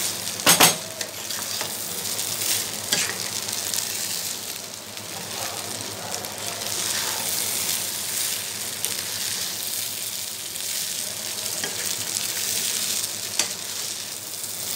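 Cooked rice frying in ghee in a nonstick pan, a steady sizzle as a spatula stirs and turns it through the vegetables and spices. Two sharp knocks of the spatula against the pan come about half a second in, with a few lighter clicks later.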